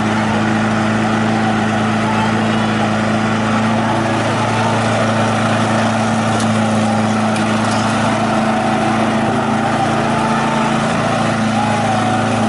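Small walk-behind petrol lawn mower engine running steadily as it is pushed across the grass, cutting.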